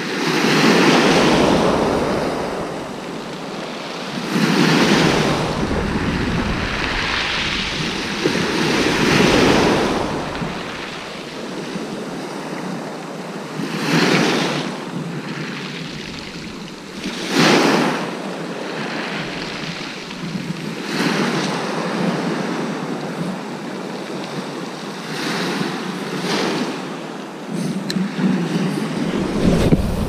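Waves of a rough sea breaking and washing up a shingle beach, surging every few seconds, with wind on the microphone.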